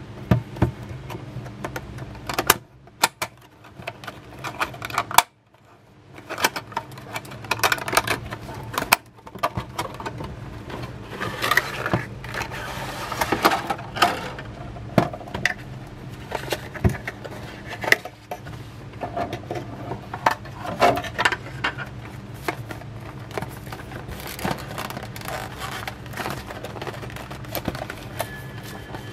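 Clear plastic clamshell packaging being handled and pried open: irregular sharp clicks, snaps and crinkling of the stiff plastic, then the rustle and knocks of a cardboard inner box being handled near the end. A faint steady hum runs underneath.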